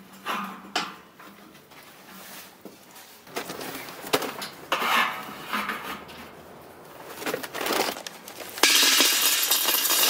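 Steel plates and a slotted steel grate clinking against the steel drum of a washing-machine grill. Near the end, lump charcoal is poured from a paper bag into the perforated drum, a loud continuous rattling clatter.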